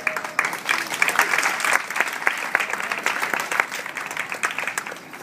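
Audience clapping: applause that breaks out suddenly, is fullest in the first few seconds, then thins out and dies away.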